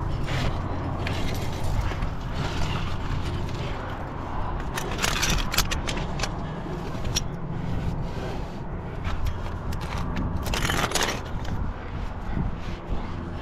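Scraping and rustling of a climber's body and clothing against granite while squeezing up a narrow crack, with climbing gear clinking now and then. Two louder scrapes come about five and eleven seconds in.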